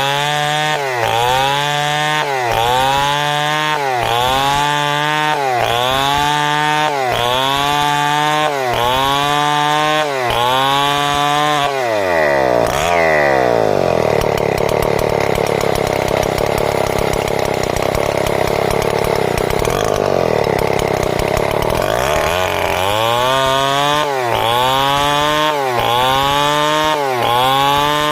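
Chainsaw cutting timber into boards, the engine pitch rising and dipping about once a second as the chain bites. About halfway the engine drops to a lower, steadier note for several seconds, then climbs back into the same rhythm near the end.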